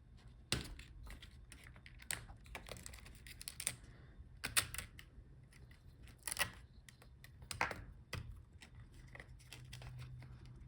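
Irregular small clicks and taps of plastic parts being handled as a laptop's internal speakers are lifted out of the chassis, with about five louder clicks scattered through.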